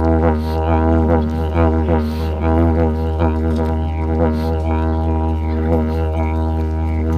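Wooden didgeridoo played as a low, unbroken drone, its overtones shifting in a quick rhythmic pattern. The tone is held without a breath break, as in circular breathing.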